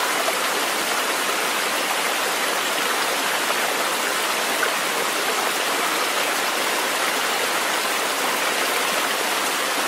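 Running water rushing steadily, as of a stream, in an even, unbroken flow.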